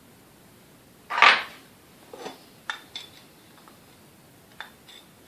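Metal hand tools clattering briefly on a workbench about a second in as one is picked up, followed by a few light metallic clicks and taps as a screwdriver works inside a vintage mixer's gearbox housing.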